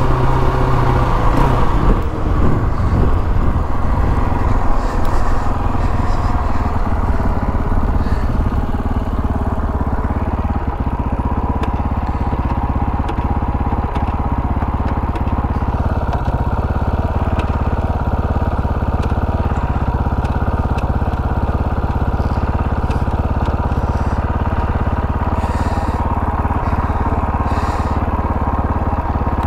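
KTM 525 XC quad's single-cylinder four-stroke engine. Its pitch falls in the first couple of seconds, then it runs steadily.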